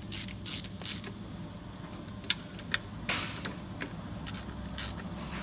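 Irregular metallic clicks and clinks of hand tools tightening the mounting nuts of a diesel fuel filter, with a steady low hum behind.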